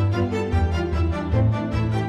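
Instrumental background music with held notes over a deep bass.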